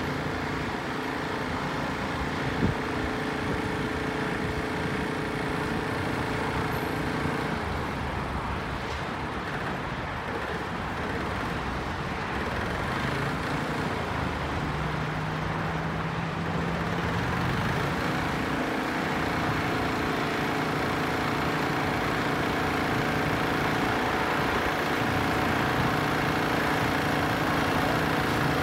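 Steady road traffic noise from a multi-lane highway, many vehicles' engines and tyres running together, with one short tap about three seconds in.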